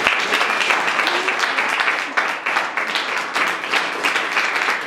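A room full of guests applauding steadily: dense, even clapping from many hands.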